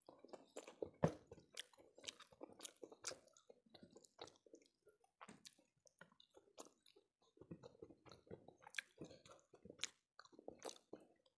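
Close-miked chewing of a person eating rice and fish curry with her fingers: soft wet chewing with many short lip smacks and mouth clicks, loudest about a second in.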